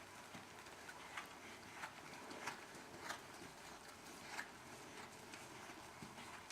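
Faint hoofbeats of a horse under saddle: a handful of sharp clicks spaced about two-thirds of a second apart, over a steady hiss.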